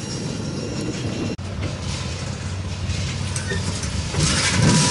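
Freight train cars rolling on the rails, with a brief dropout about a second and a half in. After it a slow-moving tank car rolls past, and the low rumble grows louder near the end.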